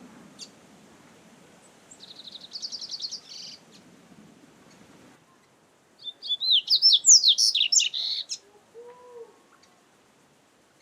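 Double-collared seedeater (coleiro) singing: a short, fast trill about two seconds in, then a louder phrase of quick, varied whistled notes about six seconds in.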